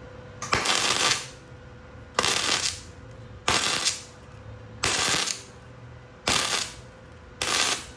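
Arc welding in six short bursts of crackling, each about half a second long and spaced just over a second apart, like a row of tack welds, over a steady workshop hum.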